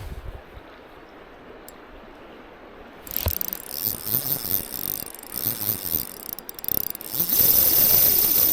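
Fishing reel ratcheting with fast, dense clicking while a hooked fish pulls against the line. It starts about three seconds in and is loudest near the end.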